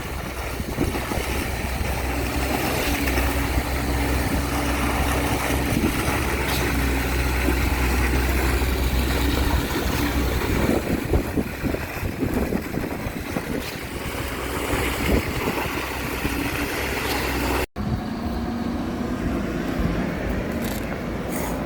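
Heavy truck engine running steadily with a low hum at a concrete pour, as from the concrete pump or mixer truck feeding it. The sound cuts out for an instant near the end.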